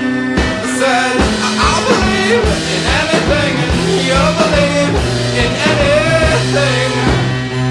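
Background rock song with a steady drum beat, bass and a singing voice.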